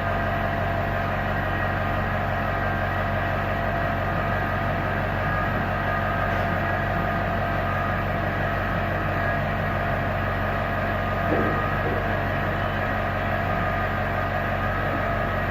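Steady machine hum of repair-shop equipment running, several steady tones held without change, with a small brief knock about eleven seconds in.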